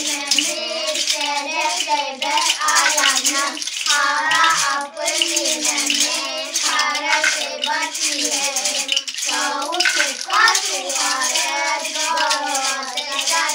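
A group of children singing a Yakut folk song together in a wavering, ornamented melody with short breaks between phrases, while shaking small handheld rattles.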